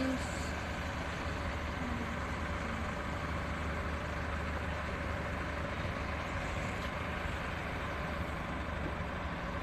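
Steady mechanical hum with a constant wash of noise, even in level throughout, like an engine running nearby.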